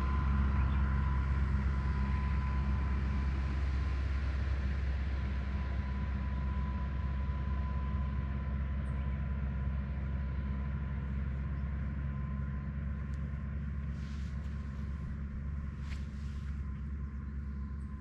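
Steady low engine rumble with a thin steady whine above it, slowly growing quieter.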